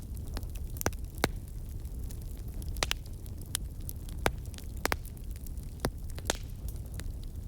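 Campfire burning: a steady low rumble of the flames, with sharp, irregular crackles and pops from the burning wood, about eight over several seconds.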